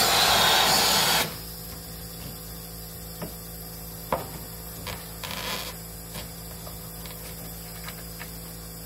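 Compressed air hissing loudly through the in-floor heating's PEX tubing, blown in to trace which loop is which; it cuts off abruptly about a second in. After that come a few light knocks and rubs as the tubing and brass manifold fittings are handled, over a faint steady hum.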